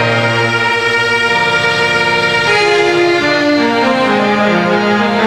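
Harmonium playing a slow melody in held notes that move up and down in steps.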